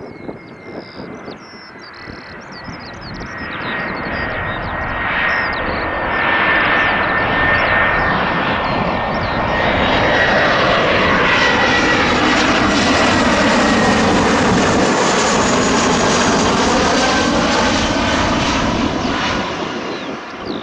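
Airliner arriving, passing low overhead on its landing approach: engine noise with a steady high whine builds over several seconds, stays loud for several more, then fades near the end.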